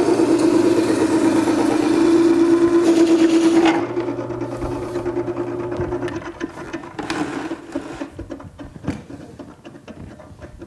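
Makita 98202 horizontal-wheel wet sharpener running, a planer knife in its jig grinding against the water-fed stone wheel with a steady hum. About four seconds in the sound drops sharply and then fades over the next few seconds, with a few light knocks near the end.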